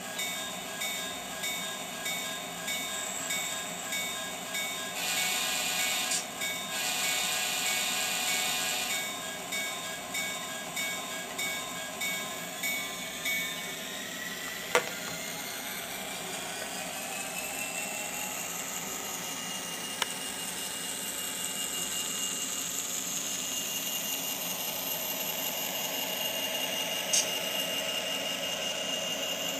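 SoundTraxx Tsunami sound decoder in an N scale Athearn F59PHI diesel model, playing locomotive sounds through its small speaker. A bell rings about every 0.7 seconds, with the horn sounding from about five to nine seconds in, broken once. Then the engine sound carries a whine that rises in pitch and holds, with a few sharp clicks.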